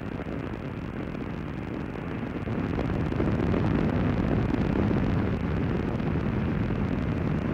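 Space shuttle Columbia's rocket exhaust rumbling during ascent, a steady low noise that grows louder about three seconds in.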